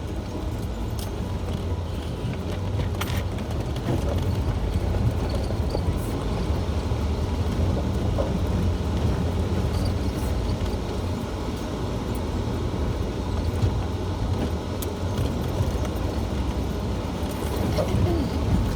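Jeep engine running steadily as it drives along a rough dirt trail, with a few brief knocks and rattles along the way.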